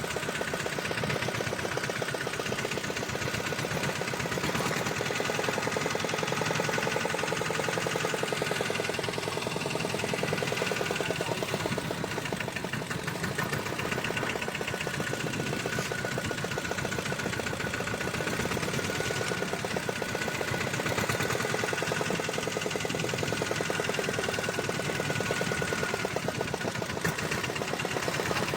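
Fishing boat's engine running steadily, a rapid, even knocking beat.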